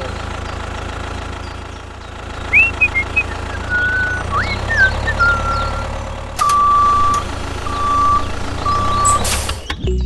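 A tractor engine runs with a steady low hum. Short chirping whistles come through about the middle. Three long, even beeps like a vehicle's reversing alarm follow near the end.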